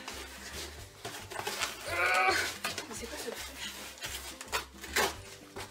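A tightly sealed cardboard box being cut and pulled open with scissors: snips, cardboard tearing and rustling, with a short wavering squeal about two seconds in.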